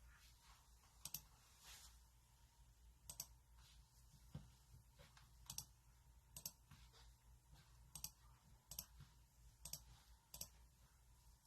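Faint, short, sharp clicks, about eight of them at uneven intervals, over quiet room tone.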